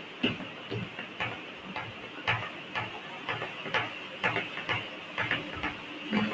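Regular ticking, about two ticks a second, over a steady faint hiss.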